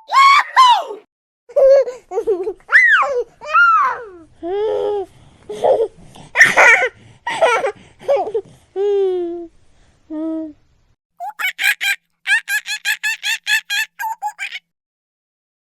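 High-pitched wordless vocal calls and squeals that swoop up and down in pitch, then a rapid string of laughter near the end.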